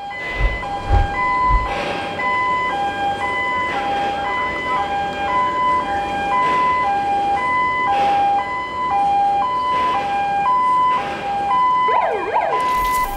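Two-tone electronic warning alarm alternating steadily between a lower and a higher note, each held about half a second, over a steady noisy background. Near the end a few quick swooping tones cut across it.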